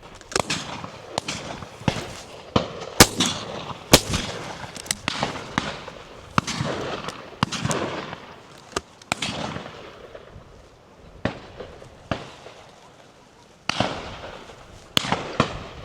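Shotguns firing repeatedly along a line of guns, many single shots in irregular succession, some close and loud and others distant and faint, each trailing a short echo. The firing thins out for a few seconds before picking up again near the end.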